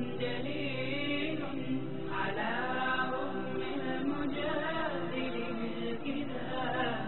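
Unaccompanied Arabic devotional chanting (a nasheed or dhikr): a melodic lead voice glides over a steady held vocal drone.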